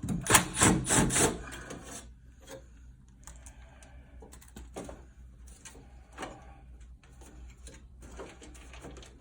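Hand work on the blower bracket of a PTAC unit: a loud run of quick scraping and clicking in the first second and a half as the bracket screw is loosened, then quieter scattered clicks and rubbing of metal parts being handled.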